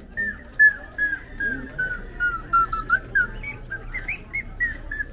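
A rapid series of short whistled notes, about four a second, each note dipping in pitch. The series slides slowly lower, then jumps higher about three seconds in and falls again.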